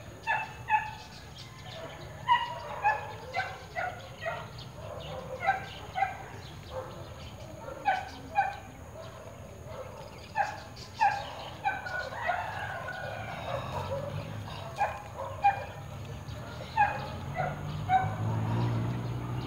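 An animal calling in short, sharp, high-pitched yelps, often two in quick succession, repeated about once a second.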